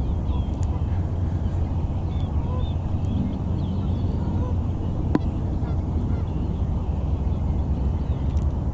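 A steady low rumble, with small birds chirping and geese honking faintly now and then over it. A single sharp click comes about five seconds in.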